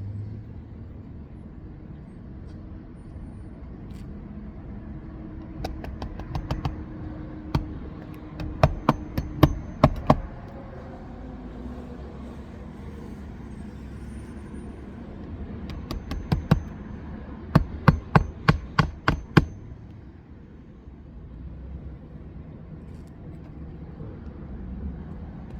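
Hammer strikes during an asphalt shingle roof repair, coming in several quick runs of blows with pauses between them.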